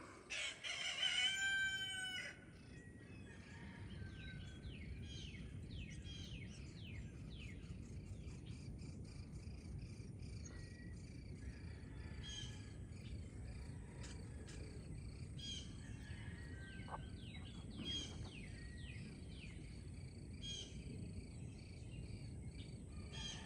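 A loud, drawn-out pitched call lasting about two seconds opens. Then birds chirp steadily in short, quick falling notes over a low, steady outdoor background.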